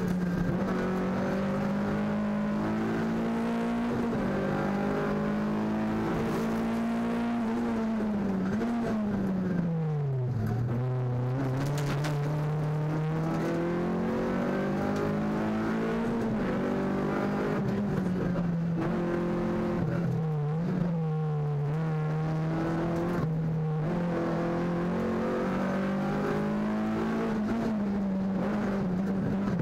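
VW Polo 1.4 rally car's engine heard from inside the cabin at stage pace, revs shifting with the throttle and gear changes. The revs fall steeply about nine to ten seconds in, then climb back and hold steadier, rising again near the end.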